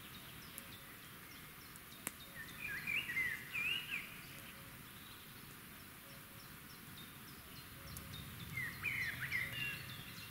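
A songbird sings two short bursts of quick chirping notes, a couple of seconds in and again near the end. Fainter high-pitched bird calls tick away over a low outdoor hiss, and there is one sharp click about two seconds in.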